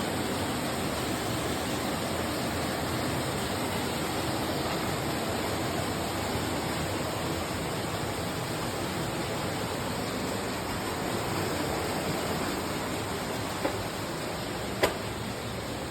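Steady rushing of a waterfall inside a cave, with two brief sharp clicks near the end.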